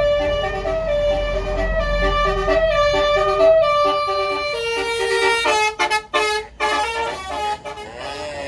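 Tour bus's basuri musical air horn playing a melody of short stepped notes over the low rumble of the bus, with a few brief breaks about two-thirds of the way through.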